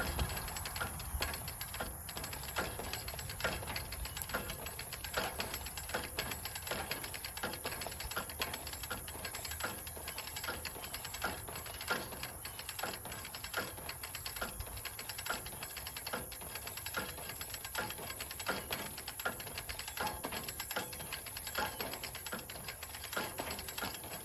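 Rapid, irregular clicking and crackling, several clicks a second, over a steady high-pitched hiss.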